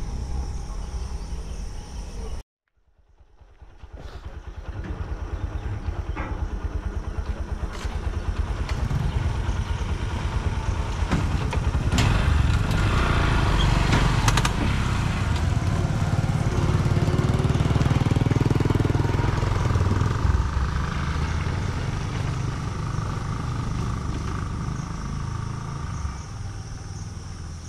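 Motorcycle engines running and pulling away as road traffic moves off over a railway level crossing, a low rumble that builds to its loudest in the middle and eases off near the end. The sound drops out about two seconds in and fades back up.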